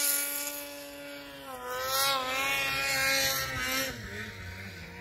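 Snowmobile engine running at high revs, steady at first, then wavering in pitch and getting louder in the middle as the machine works through deep snow, before fading; the sound cuts off suddenly at the end.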